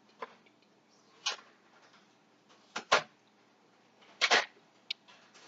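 Scattered sharp clicks and knocks of tableware and utensils being handled while eating, about six in all, with the longest about four seconds in.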